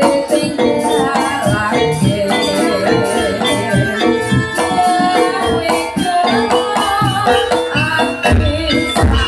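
Javanese jaranan music played loud: a wavering melody over dense drum strokes and jingling rattles, with a deep bass note coming in near the end.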